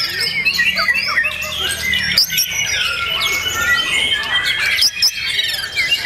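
White-rumped shamas (murai batu) singing, several birds at once: a dense, continuous run of short whistled notes and quick sliding phrases overlapping one another.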